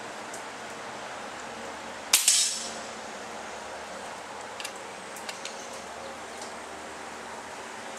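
A single shot from an FX Bobcat .22 PCP air rifle: a sharp crack about two seconds in, followed a split second later by a second smack and a short decaying tail.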